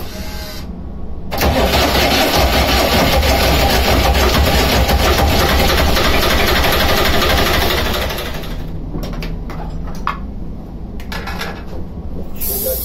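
Starter motor cranking the lifeboat's three-cylinder diesel engine for about six and a half seconds, then stopping. This is a hard-starting engine that the crew suspect of an electrical fault, a weak battery or battery charger.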